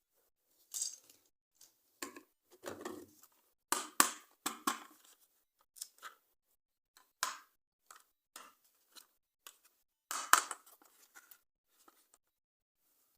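Plastic toys and their packaging being handled: irregular clicks, taps and short rustles with silent gaps between them, the loudest about 4 and 10 seconds in.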